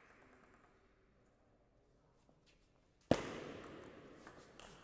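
Quiet hall ambience, then about three seconds in a single loud sharp bang that rings off through the hall, followed by a few faint clicks near the end.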